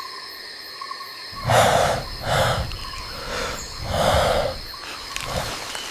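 Steady insect chirring, then from about a second and a half in a series of deep, breathy huffs, the first and fourth the loudest.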